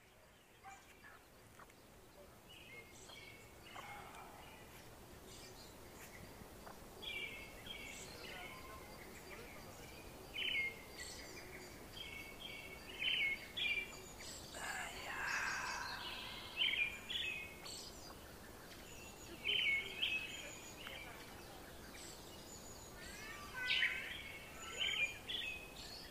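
Chicks peeping: clusters of short, high-pitched cheeps repeated on and off, over faint outdoor background noise.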